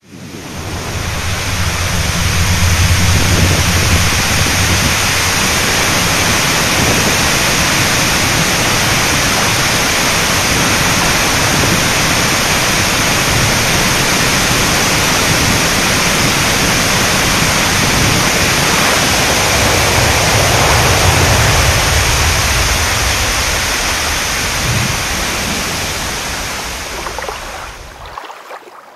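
Water pouring over a low weir, a loud steady rush with a low rumble underneath, fading out near the end.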